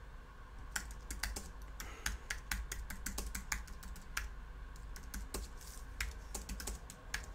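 Typing on a computer keyboard: quick, irregular key clicks as a line of text is typed.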